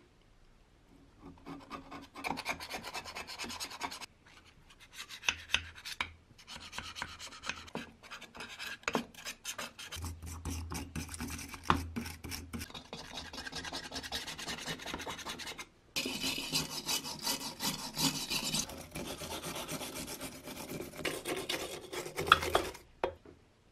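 Hand scraping and rasping on a part of an old fan, in bouts of rubbing strokes with short pauses between them and a few sharp clicks.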